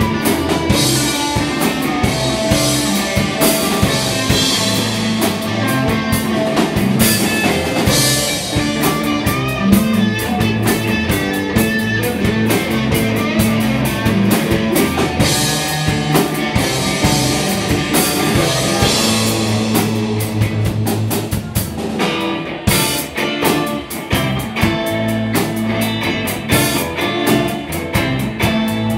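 Rock band playing live: electric guitar over a drum kit with steady cymbal hits, which drop out briefly about three-quarters of the way through.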